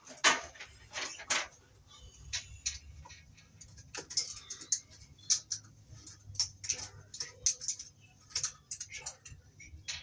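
Irregular light clicks, taps and scrapes of hands at work: a spiral compact fluorescent bulb being unscrewed from a porcelain lampholder and set aside.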